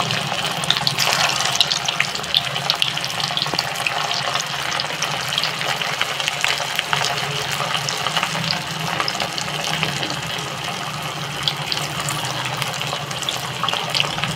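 Mutton-mince gola kababs deep-frying in hot oil in a kadhai: a steady sizzle full of small crackles and pops, with a low hum underneath.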